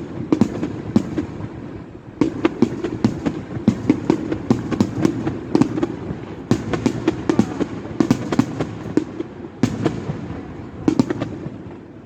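Aerial fireworks bursting in rapid succession, many sharp bangs and crackles a second over a continuous rumble, thinning briefly about two seconds in.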